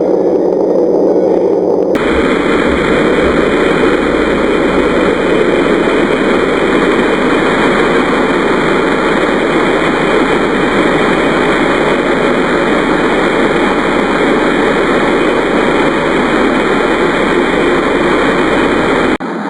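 Space sound: a loud, steady, dense rushing noise with no clear pitch. About two seconds in it suddenly turns brighter and hissier, and just before the end it cuts abruptly to a quieter, different sound.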